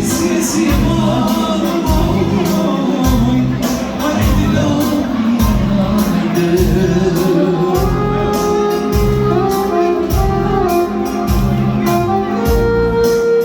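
Live band music with a steady beat and a melody line.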